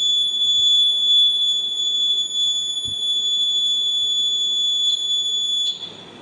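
Electronic buzzer sounding one steady high-pitched tone, which cuts off suddenly near the end.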